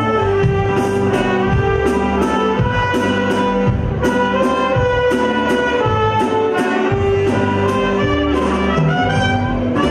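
Live band playing, with saxophones holding the melody over bass, guitar and drums, and a regular cymbal beat.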